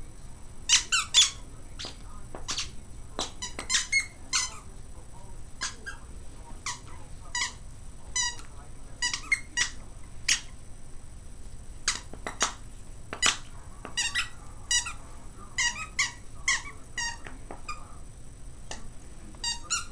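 Squeaker in a stuffingless plush dog toy squeaking over and over in quick, irregular runs as a Jack Russell terrier chews and shakes it.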